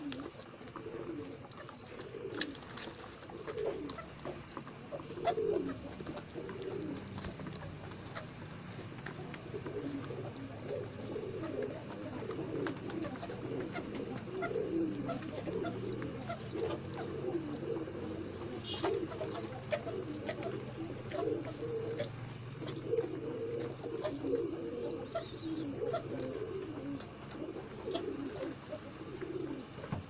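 A flock of domestic plosur racing pigeons cooing, several birds overlapping without a break.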